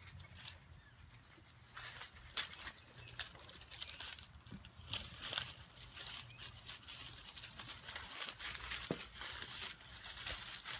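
Dry, dead vine stems and leaves rustling and crackling irregularly as small puppies scramble and play through them.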